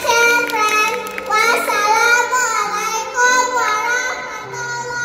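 A young girl singing a song over a backing music track, with held notes above a stepping bass line.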